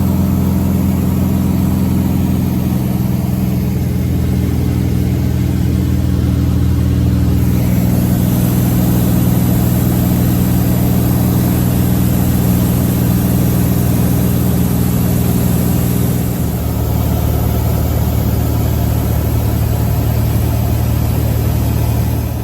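Light aircraft piston engine and propeller running at a steady cruise, a loud continuous low drone that shifts slightly in pitch a few times, over a steady hiss of air.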